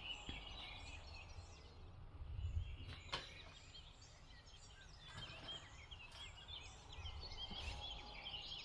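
Faint background birdsong: many short chirps keep coming over a low rumble, with a single sharp click about three seconds in.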